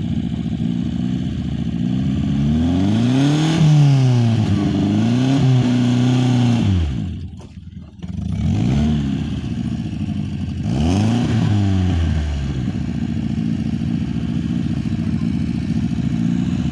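VAZ (Lada) car engine idling and being revved up and back down several times while it is checked for a knock. Just before the middle the sound drops away sharply for about a second, then the engine runs on.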